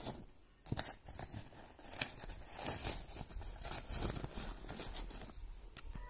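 Fabric drawstring storage bag being loosened and pulled open by hand: irregular rustling and crinkling with a few sharp clicks, the loudest about two seconds in.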